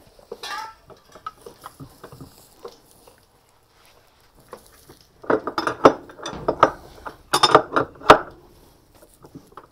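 Metal tools clinking and clattering as a wrench tightens the nut on a washing machine's drive shaft. After a few faint clicks, a burst of rapid, loud clinks starts about five seconds in and ends with one sharp knock.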